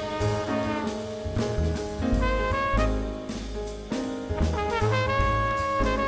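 Jazz band playing live: horns hold long, sustained notes over a moving bass line, with drums and cymbals striking throughout.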